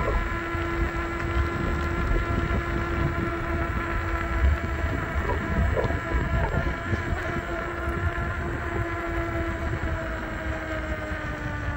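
Veteran Sherman electric unicycle's hub motor whining steadily while riding along, with wind rumbling on the microphone. The whine drops in pitch near the end as the wheel slows.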